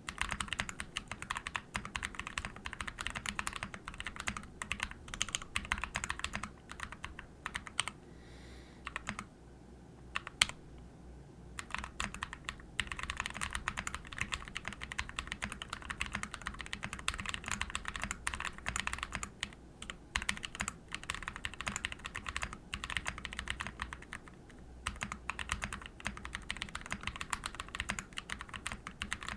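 Fast, continuous typing on a custom mechanical keyboard in a Hubris case with a titanium plate, Naevies switches and JTK Night Sakura keycaps: a dense run of key clicks. It breaks off briefly about eight and eleven seconds in, with one louder single keystroke between the two pauses.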